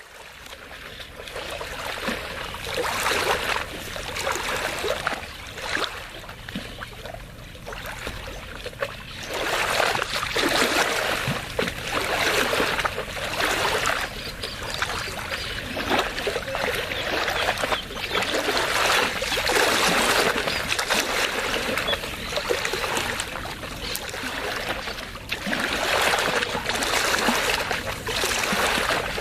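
Small waves lapping and washing against a lake shore. The water comes in uneven surges every one to three seconds.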